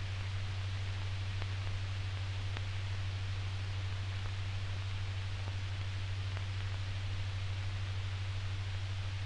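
Steady hiss with a constant low hum and a few faint ticks: the background noise of an old recording's soundtrack.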